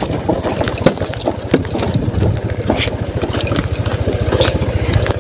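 Small motorcycle engine running as it rides over a bumpy dirt track, with a steady low engine pulse and irregular knocks and rattles from the rough ground.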